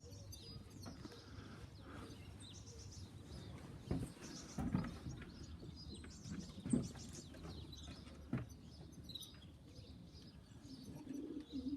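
Birds chirping faintly and off and on around a pigeon loft, with a few short dull thumps in the middle.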